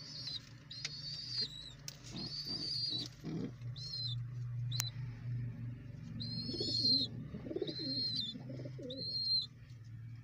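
Young pigeons (squabs) peeping: about eight thin, high, slightly wavering squeaks, each under a second long, with low pigeon cooing underneath in the second half.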